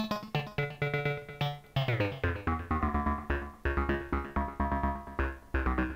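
Modular synthesizer playing a sequenced line of short notes in quick succession, changing pitch from note to note. Its single oscillator is shaped by an envelope that gates from an Ableton clip trigger.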